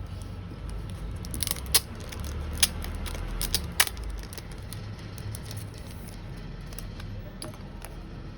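Hands handling packaging and merchandise during an unboxing: a few sharp clicks and crinkles, the loudest just under two seconds in, then twice more up to about four seconds in, over a low steady hum.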